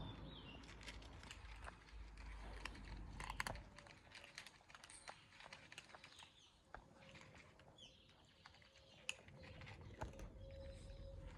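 Cats eating dry food: faint, irregular crunching clicks of kibble being chewed.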